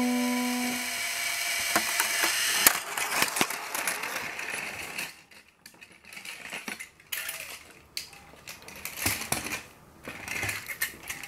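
Plastic Plarail toy train clicking and rattling irregularly along plastic track, busier for the first few seconds and sparser after. The last note of an electronic organ melody fades out at the very start.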